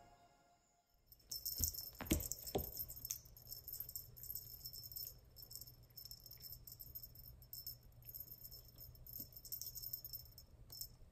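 Small jingle bell on a cat toy jingling and rattling irregularly as a kitten bats and paws at it on a cardboard scratcher, with a few sharp knocks about two seconds in.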